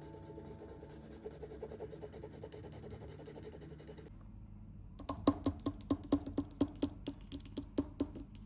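Marker tip stroking quickly back and forth on paper while colouring. A few seconds in the strokes stop abruptly, and then come a run of sharp taps, about four a second.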